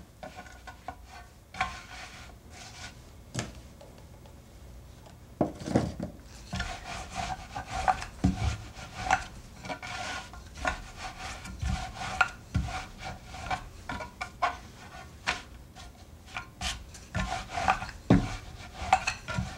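Rolling pin rolling out a sheet of puff pastry dough, with repeated rubbing strokes and light knocks, and a short lull about four seconds in.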